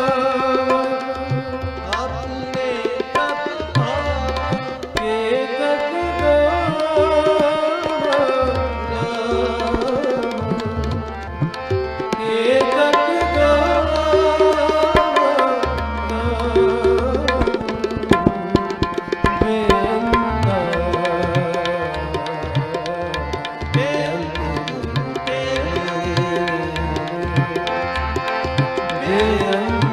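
Gurbani kirtan: male voices singing a Sikh hymn over a harmonium, with tabla strokes keeping the beat.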